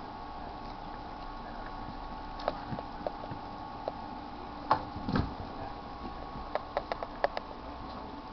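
Papillon dogs' claws clicking and tapping on a wooden floor as they scuffle, with a soft thump about five seconds in and a quick run of clicks near the end, over a steady background hum.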